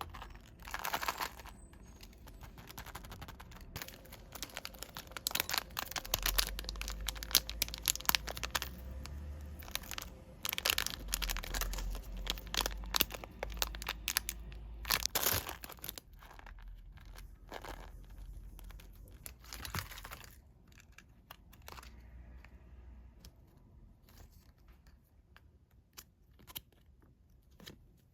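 Packaging being handled and torn open by hand: dense crinkling and tearing with many small crackles, busiest in the middle and thinning out near the end.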